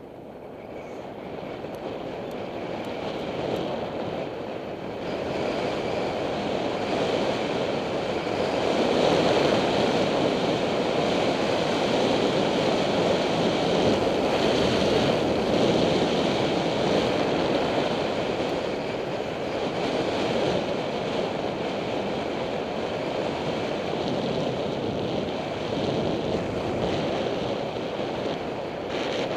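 Wind rushing over a helmet-mounted action camera's microphone on a moving bicycle, a steady roar that grows louder over the first nine seconds or so and then holds.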